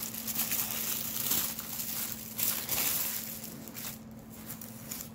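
Packaging in a subscription box rustling and crinkling as items are handled and lifted out, in uneven surges that die down near the end.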